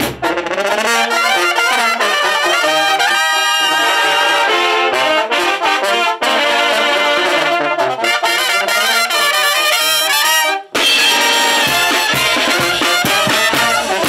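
Oaxacan wind band (banda de viento) playing: trumpets, baritone horns and sousaphone carry the tune with the drums and cymbals silent. About eleven seconds in, after a brief break, the whole band comes back in with cymbal and bass drum strokes.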